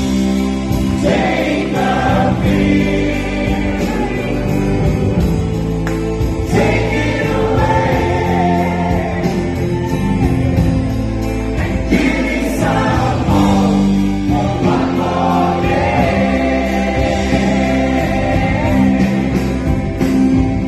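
Live stage-musical song: voices singing together over a live band with electric guitar and keyboards, heard through a phone's microphone in the audience.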